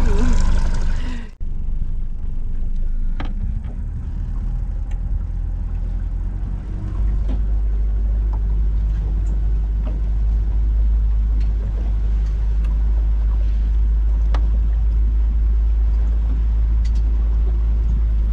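Small motorboat under way: a steady engine drone under a heavy low rumble of wind on the microphone, growing stronger partway through, with a few faint knocks. An abrupt cut about a second in ends a busier sound that came before it.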